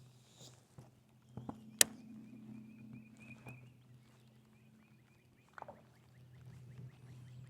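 A sharp knock just under two seconds in, with a few softer knocks, over a steady low hum and a faint rapid ticking.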